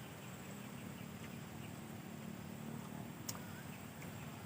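Quiet outdoor background: a faint steady low hum, with a single faint click about three seconds in.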